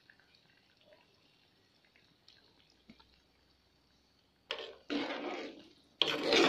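Steel spoon scraping and stirring inside a clay pot of fish curry: two loud scraping strokes, each about a second long, near the end, after a few seconds of faint small ticks.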